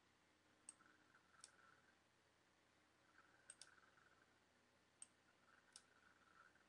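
Near silence with a few faint computer mouse clicks, scattered singly, with two close together about three and a half seconds in.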